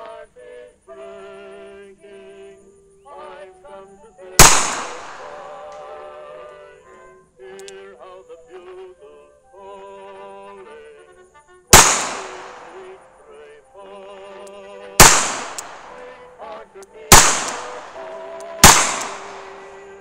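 Colt New Service revolver in .455 firing five single shots, each with a short ringing decay: one about four seconds in, then four more in the second half, spaced roughly one and a half to three seconds apart. Background music with a sung melody plays underneath.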